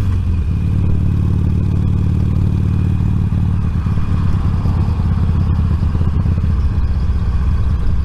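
Motorcycle engine running with a steady low note at about 25 mph, heard through a microphone inside the crash helmet, with wind rush over it.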